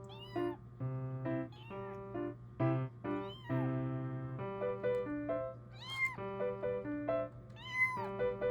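Kitten mewing, several short high-pitched mews, the loudest about six and eight seconds in, over background music with steady keyboard notes.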